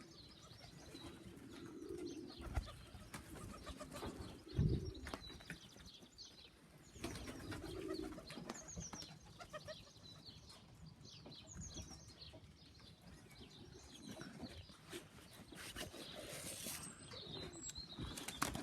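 Domestic pigeons cooing faintly at the loft, several low coos a few seconds apart, with small birds chirping now and then.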